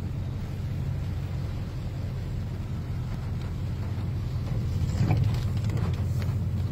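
Rain on a car's windshield and body heard from inside the cabin over a steady low rumble, with scattered sharp clicks of drops and the windshield wipers from about five seconds in.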